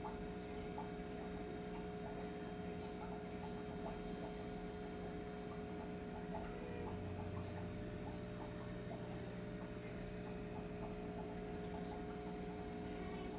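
Aquarium pump humming steadily, with faint scattered ticks over the hum.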